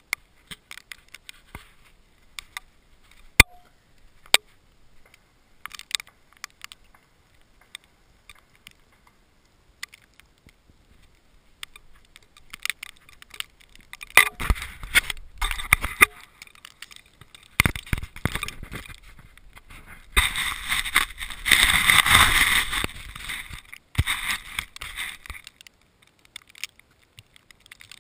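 Handling noise on a small action camera as it is moved and set down: a couple of sharp clicks, then a long stretch of rustling and rubbing on the microphone that grows loudest for a few seconds past the middle.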